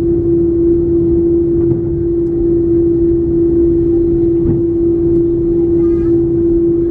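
Airliner cabin noise while an Airbus A330-300 taxis: its engines run at low thrust as a loud, steady hum with one constant tone over a low rumble. A faint knock comes about four and a half seconds in.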